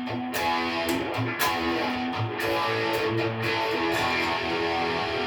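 A full rock band playing, with electric guitar chords strummed over bass and drums, the whole band coming in together.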